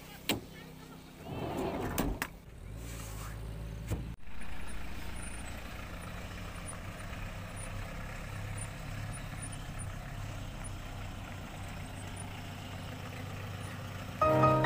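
A few sharp knocks in the first four seconds, then a van's engine running steadily as it drives slowly. Music comes in near the end.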